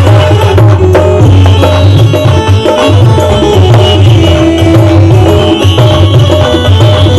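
Music with a beat of hand-drum percussion and a heavy pulsing bass, played loud through JBL stage monitor speakers.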